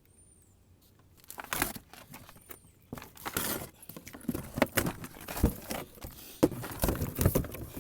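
Packaging and parts being handled: rustling, knocks and light clinks starting about a second and a half in, growing busier, with a few sharper thumps near the end.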